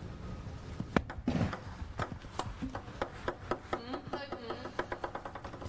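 Table tennis ball: a sharp knock about a second in, then the ball bouncing on a hard surface, the bounces coming faster and faster as it settles to rest.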